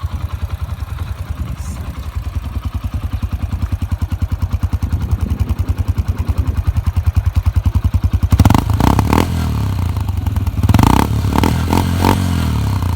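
Yamaha XTZ 125 single-cylinder four-stroke running through an aftermarket Orient Sport spin pipe, idling with a fast, even exhaust beat. It is revved in short blips about eight seconds in and again near eleven seconds.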